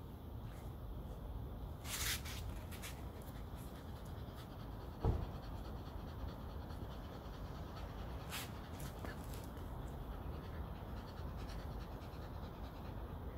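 Shetland Sheepdog panting while it is brushed, with a few short hissing swishes about two seconds in and again past eight seconds, and a single thump about five seconds in.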